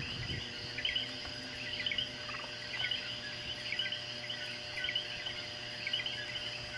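Chorus of coquí frogs calling, many short two-note "ko-kee" calls overlapping several times a second.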